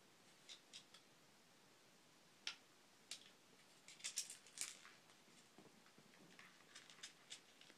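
Scattered light clicks and rattles as a cat paws at a plastic treat-dispensing tower toy, with dry food pieces knocking around in its plastic tray. A quick cluster of clicks comes about four seconds in.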